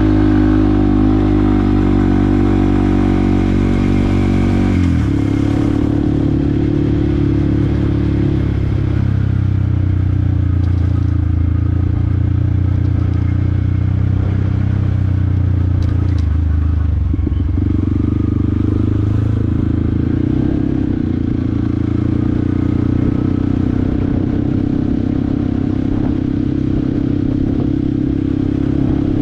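Yamaha WR155R's single-cylinder four-stroke engine running while being ridden, its note steady. About five seconds in the pitch drops sharply, then the engine settles into a steady note again.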